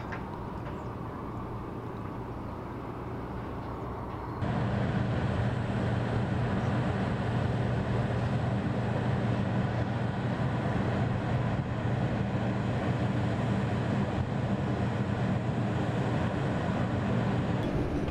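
Steady low mechanical drone of heavy construction machinery with a constant hum, which jumps louder about four seconds in.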